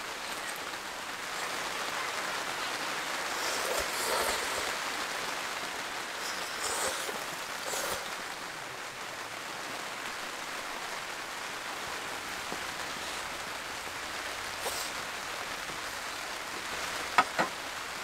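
Steady rain falling, with a few louder drops or taps now and then and two sharp clicks near the end.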